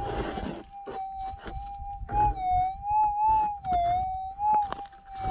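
Gold-prospecting metal detector holding a steady threshold tone that wavers up and down in pitch for a couple of seconds past the middle as the coil passes over a target, with scrapes and ticks of the coil and footsteps on dry, stony ground.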